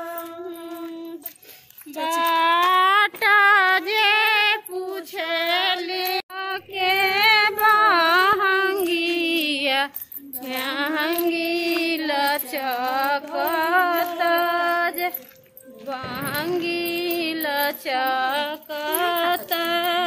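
A woman singing a Chhath Puja devotional song over backing music, her voice high and gliding between long held notes.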